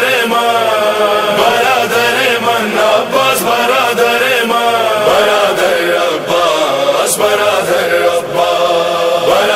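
Male voices chanting a wordless melody in slow, held notes with a wavering pitch: the vocal opening of an Urdu noha, a Shia lament.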